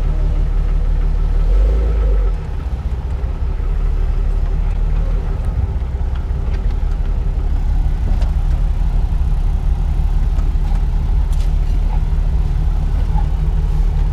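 Jeep Wrangler driving slowly over beach sand, heard from inside the cabin: a steady low engine and road rumble that drops suddenly about two seconds in.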